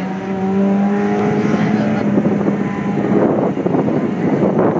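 Sports car engine holding a steady note under power as the car drives away across the lot, fading out about three seconds in. Wind then buffets the microphone.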